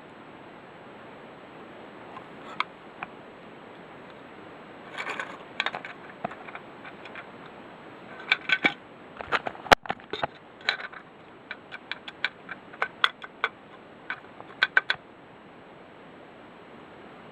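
Handling noises from the plastic smoke detector: scattered sharp clicks, taps and short rattles at irregular intervals, with a busier run in the second half and the loudest a single sharp click about ten seconds in. No alarm sounds.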